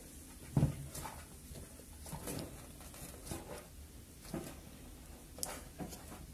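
Faint handling noises: a few light clicks and taps, spread out about a second apart, as hands work a freshly soldered XT60 connector and wire held in a metal helping-hands clamp.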